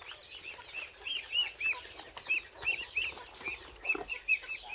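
Chicks peeping: many short, high chirps, several a second, with no let-up.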